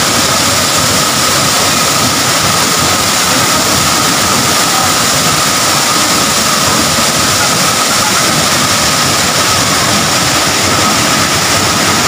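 The tall Sikulikap waterfall: a steady, loud rush of falling water that does not let up.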